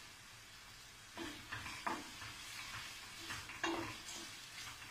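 Wooden spoon stirring and scraping a stainless steel pot of onions sautéing in fat with tomato paste and spices, the mixture sizzling underneath. A handful of short scrapes from about a second in.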